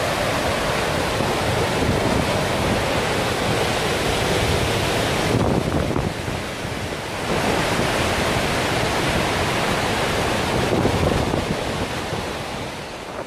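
A large waterfall in full flow: heavy white water rushing steadily into a rocky gorge. The hiss thins for a couple of seconds about midway, then returns.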